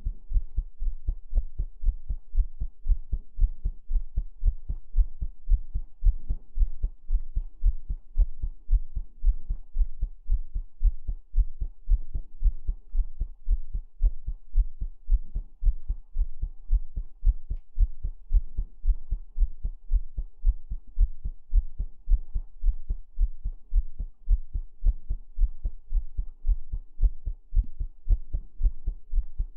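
Heartbeat sounds: a steady, even rhythm of low, soft thuds that goes on without a break.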